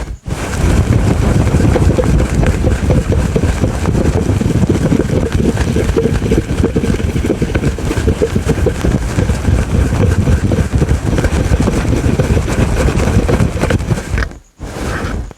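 Fast, aggressive scratching on a fluffy microphone cover, a dense, rough rumbling rustle close to the mic, with a short break near the end.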